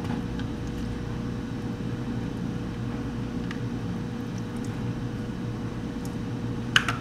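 Steady low background hum with a faint steady tone, under a few soft clicks of a spoon scooping yogurt out of a plastic cup into a blender cup. A sharper spoon tap comes near the end.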